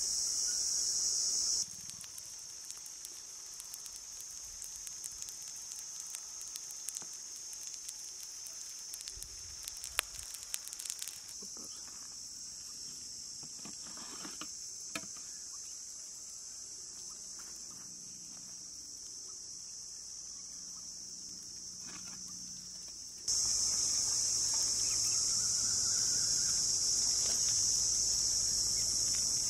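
Insects chirring in a steady high-pitched outdoor chorus. It drops quieter about two seconds in and comes back louder near the end. Scattered light clicks sound in the first half.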